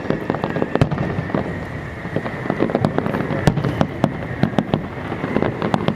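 Aerial fireworks bursting, a dense run of irregular bangs and crackles in quick succession.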